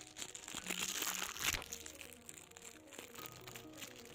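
Packaging crinkling and rustling as it is handled, loudest about a second and a half in, over soft background music.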